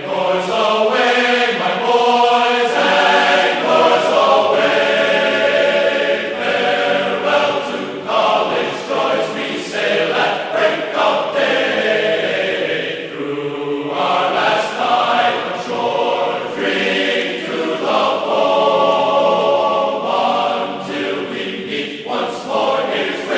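Background music of many voices singing together in long held notes, chant-like, with the pitch moving every second or so.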